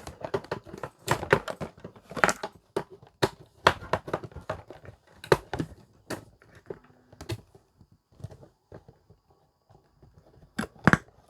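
Handling noise from a portable speaker and its cardboard box: irregular clicks, knocks and crinkling as the speaker is taken out and set up. A brief faint tone sounds about seven seconds in.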